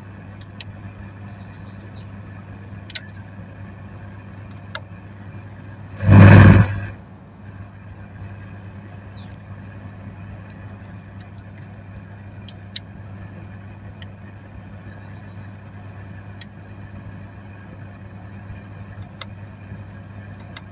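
Scattered light clicks of the factory radio's buttons being pressed to set the clock, over a steady low hum. About six seconds in there is one loud rush of noise lasting about a second, and from about ten to fifteen seconds a run of quick high chirping notes.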